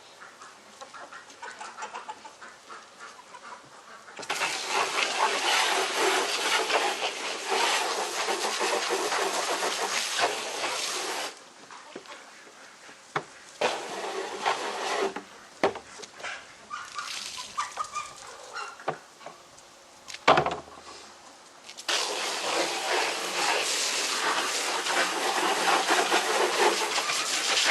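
Water spraying from a garden hose in two long stretches, about 4 s in and again from about 22 s, with knocks and clunks of containers and a few faint poultry calls in between.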